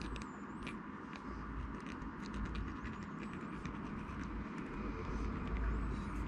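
Steady background noise with a low rumble and hum, with faint short high ticks and chirps scattered through it.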